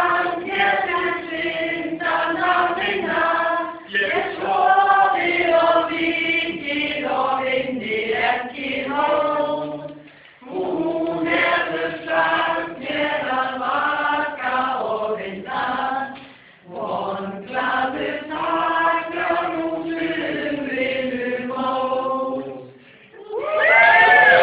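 A choir singing a slow song in long phrases separated by short pauses.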